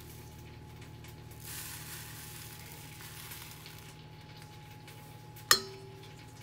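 Stand mixer with a wire whisk in a stainless steel bowl of whipped mixture, giving a steady low hum with a soft hiss for a couple of seconds. About five and a half seconds in comes a single sharp metallic clink that rings briefly.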